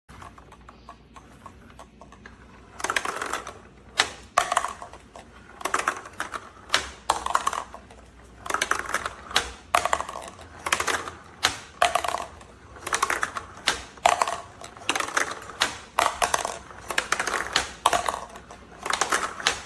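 Repeated bursts of rapid clicking and rattling, roughly one burst a second.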